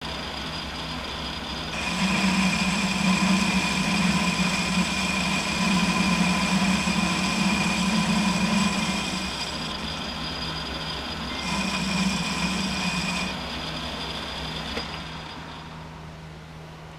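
Metal lathe running and turning a metal part with a carbide insert tool: a steady machine hum, growing louder with a sustained whine for about seven seconds from about two seconds in, and again briefly around twelve seconds, while the tool cuts. The sound fades near the end.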